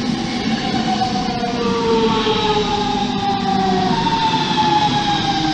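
A DB Regio electric multiple unit passing close along the platform. Its traction drive whines in several tones that fall slowly and steadily in pitch as the train slows, over the rumble of wheels on rail, with a few faint clicks.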